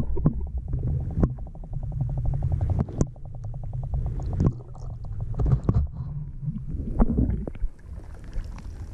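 Muffled underwater sound picked up by a submerged action camera in a shallow stream: low rumbling water movement from hands stirring the water, with knocks and rapid trains of clicks. Near the end the sound opens up as the camera comes out of the water.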